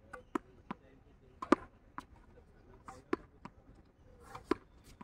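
Tennis ball being struck by rackets and bouncing on a hard court: a string of sharp pops at uneven spacing, the loudest about a second and a half in.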